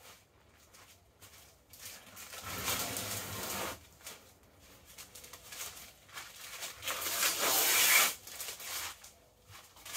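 Peel ply being ripped off a cured epoxy-fibreglass laminate, heard as two long crackling tearing pulls, about two to four seconds in and six to eight seconds in, with a shorter tear near the end.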